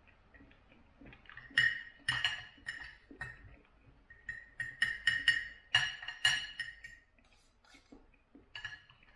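Knife and fork clinking and scraping against a plate while cutting a pork rib roast. The clinks ring and come in a quick string from about a second in to about seven seconds, with one more near the end.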